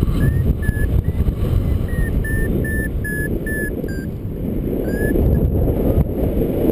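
Paragliding variometer beeping: short high beeps, about three a second, with a few rising chirps, the climb tone that signals lift in a thermal. Heavy wind rush on the microphone lies underneath.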